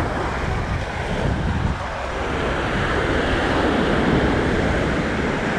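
Ocean surf washing onto a sandy beach, with wind rushing over the microphone; the wash swells louder in the second half.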